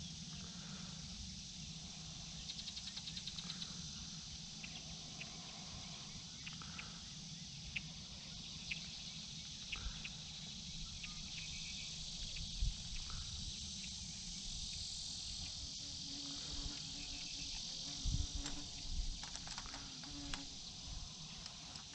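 Insects buzzing steadily, with a short fast trill about three seconds in. A low hum runs underneath, and a few sharp knocks come around the middle and later.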